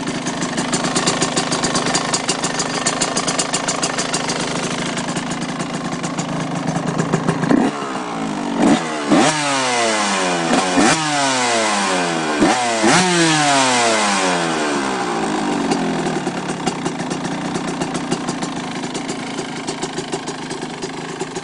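1998 Yamaha YZ125's single-cylinder two-stroke engine with an aftermarket exhaust, idling after a cold start. From about eight seconds in it is blipped several times in quick succession, each rev rising sharply and falling straight back, then it settles back to a steady idle.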